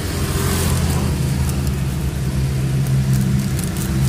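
Motor vehicle engine running nearby with a steady low hum, which swells louder near the end.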